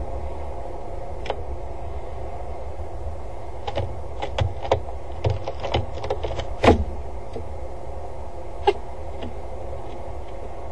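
Peregrine falcon's feet tapping and scraping on a roof grating as it moves along and takes off: an irregular run of clicks and knocks from about four to seven seconds in, the loudest near the end of the run, then two single clicks a little later, over a steady low hum.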